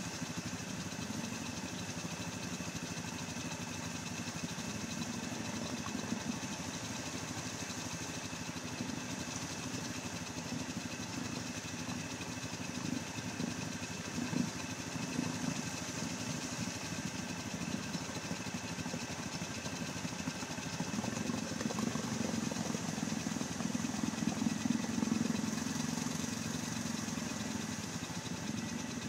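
Yamaha Grizzly 700 ATV's single-cylinder engine running through an aftermarket Audio Pipe exhaust. The engine runs continuously, its revs rising and falling and getting louder in swells about halfway through and again near the end.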